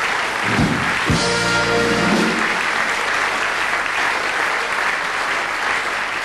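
Audience applauding throughout. About half a second in, a short band fanfare sounds for under two seconds: the carnival 'Tusch' played after a punchline.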